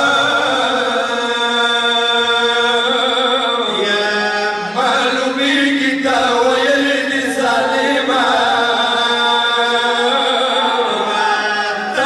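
Men's voices chanting a Pashto noha (Muharram lament) into microphones, in long drawn-out held notes with short breaks between phrases.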